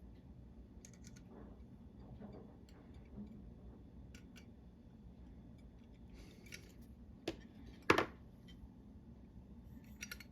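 Faint clicking and scraping of small metal parts as a pepper grinder's spring retainer clip is worked onto its shaft, with two sharper clicks about seven and eight seconds in as the clip catches.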